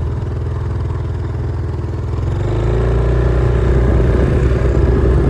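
Portable air compressor running while it pumps an RV tire up toward 60 psi, with a rapid steady pulsing; it grows louder about halfway through, with a slight rise in pitch.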